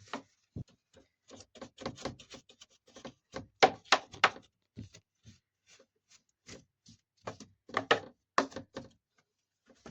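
Irregular clicks and knocks of hard plastic tumble-dryer parts being handled while packed lint is cleared out by hand, with louder clusters of knocks about four seconds in and again near eight seconds.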